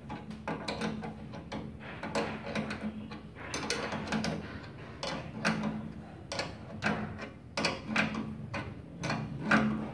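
Steel wrench turning a nut on a welding machine's output cable terminal: irregular metallic clicks and scrapes, about one or two a second.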